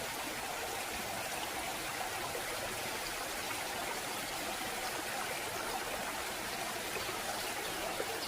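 Steady rush of water running down a waterfall.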